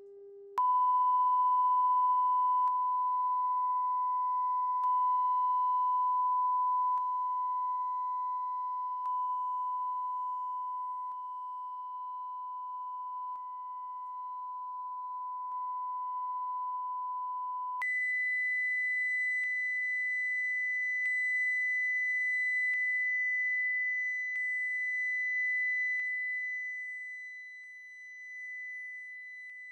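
Sine-wave test tones from a small speaker, picked up by a Shure Beta 87A condenser microphone: a steady 1 kHz tone that switches to 2 kHz about 18 seconds in. The tone's level rises and falls slowly as the speaker is rotated from the front to the back of the microphone.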